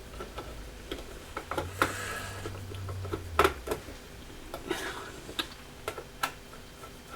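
Screwdriver working small self-tapping screws out of a metal effects-pedal case: scattered light metallic clicks and a few short scrapes, with the screws turning in worn holes rather than coming out.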